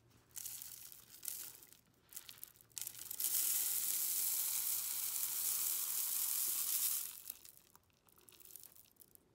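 Table salt running through a plastic funnel into a cardboard paper towel tube. A few short scattered rustles come first, then a steady hiss of falling grains for about four seconds that tails off.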